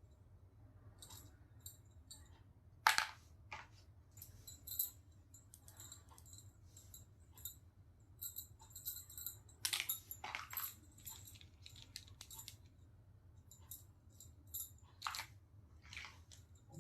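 Small plastic toy pieces clicking, tapping and rattling as they are handled, with a few sharper knocks about three seconds in, around ten seconds in and near the end, over a steady low hum.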